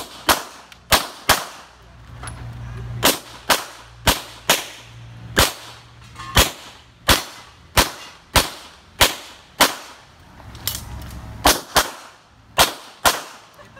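Gunshots from a practical-shooting course of fire: about twenty loud, sharp shots, mostly in quick pairs, with short pauses between the pairs as the shooter moves between targets.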